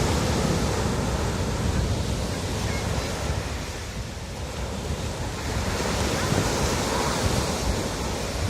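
Ocean surf washing onto a beach, easing off about halfway through and building again, with wind buffeting the microphone.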